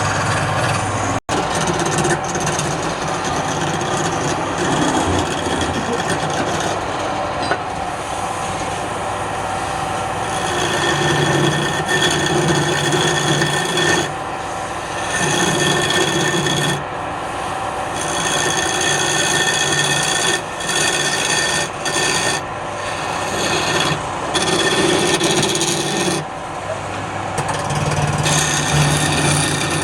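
Wood lathe running while a turning tool scrapes and rasps against the spinning wood. The cutting comes in stretches of a few seconds with short breaks between them, and the sound cuts out for an instant about a second in.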